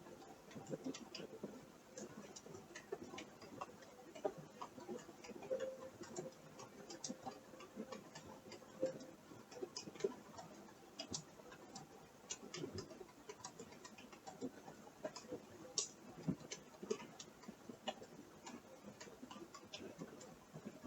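Faint, irregular ticking and creaking: light clicks a few times a second, uneven in spacing and strength, over a low creaky murmur.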